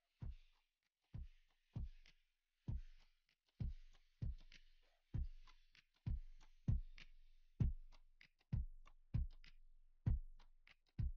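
Quiet background music: a deep, repeating kick-drum beat with no vocals, its thumps coming a little faster in the second half.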